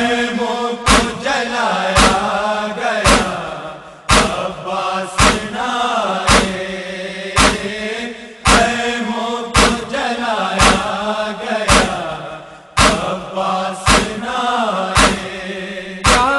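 Voices chanting a wordless noha lament line. Sharp slaps fall about once a second, keeping the beat the way matam (rhythmic chest-beating) does in a noha recitation.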